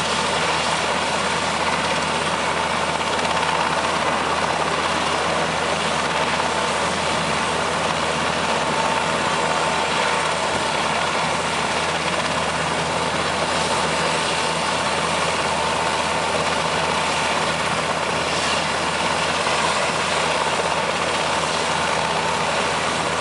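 Super Puma helicopter's twin turbine engines running on the ground with the main rotor turning but not lifting off. A steady turbine whine with a constant high tone over unbroken rotor and engine noise.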